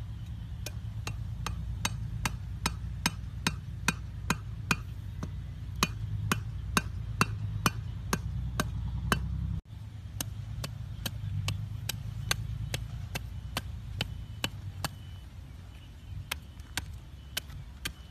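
A knife blade chopping into hard, dry ground, digging a hole. The sharp strikes come in a steady rhythm about twice a second, then become sparser and softer about halfway through. A low, steady rumble runs underneath.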